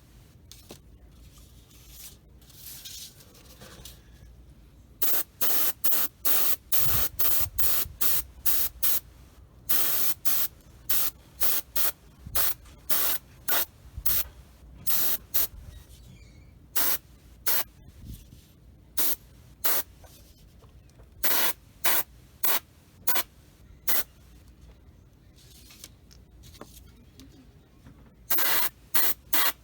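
Airbrush spraying primer in many short hissing bursts as the trigger is pressed and released again and again. The first few seconds hold only fainter hiss.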